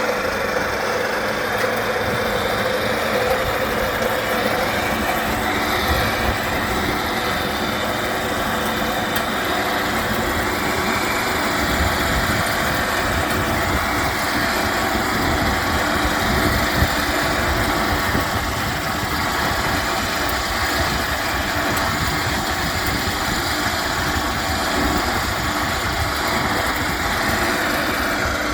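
Electric cylinder (reel) lawn mower running steadily, a constant motor hum over the whirr of the mechanism.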